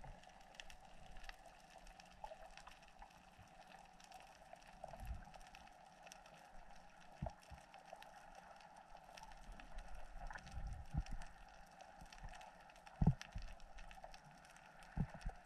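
Faint underwater ambience heard through an action camera's waterproof housing while diving over a reef: a low steady hum and hiss with a few soft low knocks.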